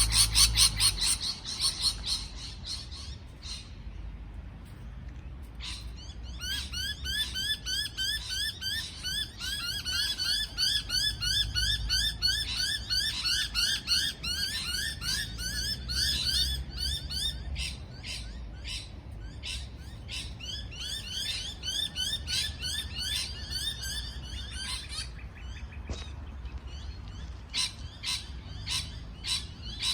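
Parrot chirping: a long run of rapid, repeated rising chirps from about six seconds in to about twenty-five seconds, with louder sharp calls at the start and separate single chirps near the end.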